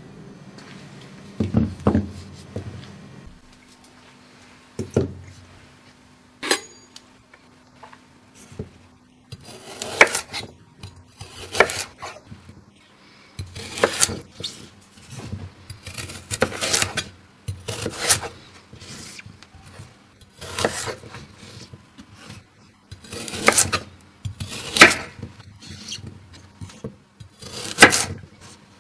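Chef's knife chopping carrots on a bamboo cutting board: sharp knocks of the blade striking the wood, one every second or two, with a few scattered softer knocks in the first several seconds.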